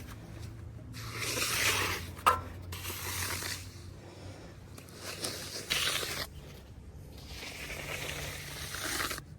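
Bull float being pushed and pulled across freshly poured wet concrete: a series of long scraping swishes, each lasting about a second, with a sharp click a little after two seconds in.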